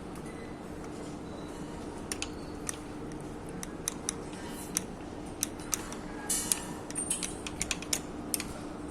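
Scattered small metallic clicks and taps from hand tools and engine parts being handled during work on a Suzuki 90 HP outboard motor, busiest a little past the middle. A low steady hum runs underneath.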